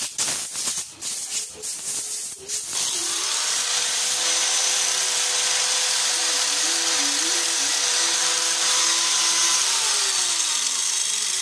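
Rocker arms on their shaft clink and rattle as they are handled. About three seconds in, an angle grinder with a flap disc is switched on and runs steadily, used to grind down the worn contact faces of the rocker arms so the valve clearance can be set right.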